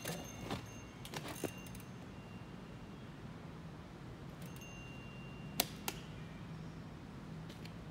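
Mountain bike picking its way up a rock garden: scattered sharp knocks and clicks of tyres and bike hardware against the rocks, the two loudest close together late on, with a brief thin high tone a little before them.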